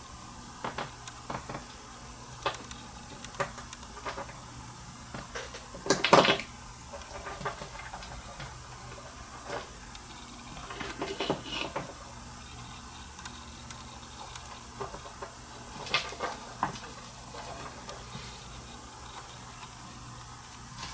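Small scattered clicks and taps of jewelry pliers handling tiny metal jump rings, with a louder knock about six seconds in and a short run of clicks a few seconds later, over a faint steady low hum.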